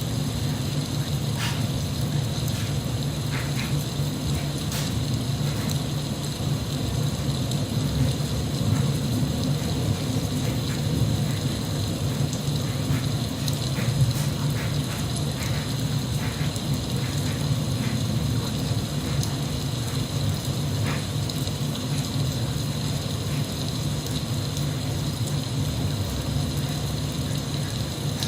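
Steady rain, with scattered louder drops ticking on a surface.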